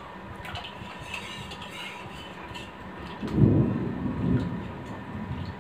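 Faint clinks of a ladle against steel bowls as dal is served. About three seconds in, a deep low rumble swells and fades over roughly two seconds.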